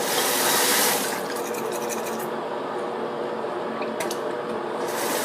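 Water running from a tap into a sink, a steady rushing hiss that is stronger for about the first second and again near the end.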